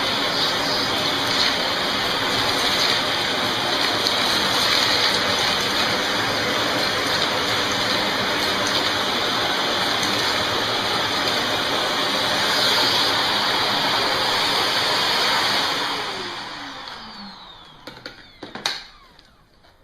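Shark Navigator NV356E upright vacuum running at full suction through its hose, a steady rush of air. About sixteen seconds in it is switched off and the motor whine falls in pitch as it spins down, with a single click near the end.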